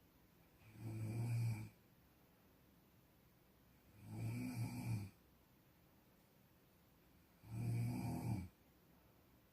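Snoring in an even rhythm: three snores, each about a second long, come roughly every three and a half seconds, with quiet between them.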